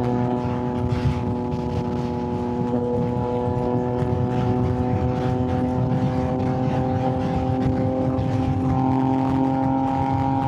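Yamaha MT-09's inline three-cylinder engine running at a steady pace while riding, its note rising slightly near the end as the revs pick up.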